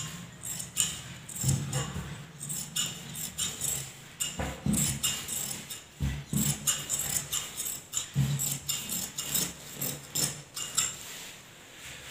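Tailor's scissors cutting through cloth: a quick, irregular run of snips and blade clicks, with a few dull knocks about four, six and eight seconds in.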